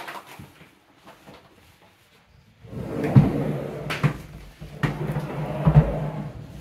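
A wooden sliding door with glass panels rattling and knocking in its frame, starting about three seconds in, with a few sharp knocks among the rattling.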